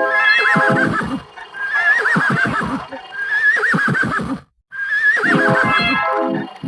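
An animal-call sound effect played four times in a row. Each call is a wavering high note that breaks into lower, falling, pulsing tones and lasts about a second and a half.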